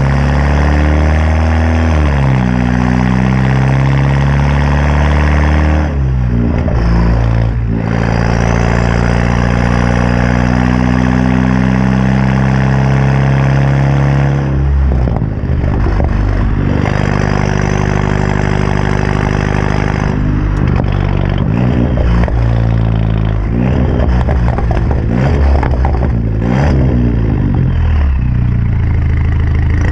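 BMW 328i's 2.0-litre turbocharged four-cylinder running through a straight-through exhaust (M-Performance catback with muffler and resonator deleted, aftermarket downpipe), idling steadily with a few short throttle blips and a run of quick revs near the end.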